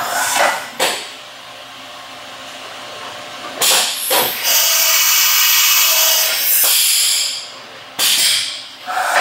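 Fadal VMC 3016 CNC vertical machining center running a peck drilling cycle: the spindle and axis drives whir as the head drives down and retracts. Loud stretches of hissing come in a few seconds in and again near the end, with a quieter spell between.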